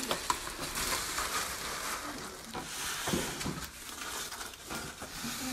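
Plastic wrap and snack bags crinkling and foam take-out containers being handled: a steady rustling hiss with scattered light clicks.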